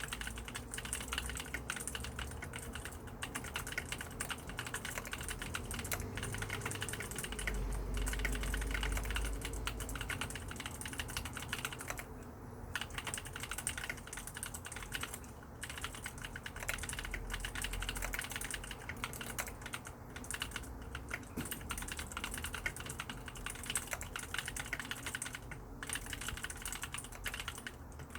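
Mechanical keyboard with lubricated blue clicky switches typed on quickly and continuously: a dense, fast patter of key clicks and keystrokes, pausing only briefly a few times.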